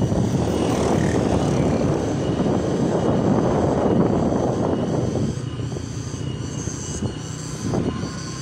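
Motorcycle riding along a road, engine running under a steady rush of wind and road noise. It is louder for the first five seconds, then eases somewhat.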